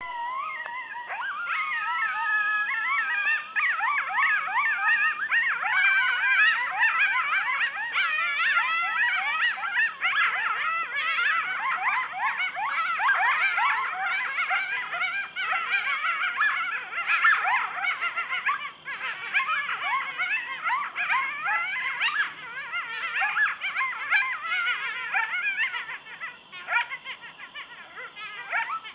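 A pack of coyotes howling and yipping in a dense, overlapping chorus. A few long wavering howls open it, then come rapid yips and short rising-and-falling cries, thinning out and fading near the end.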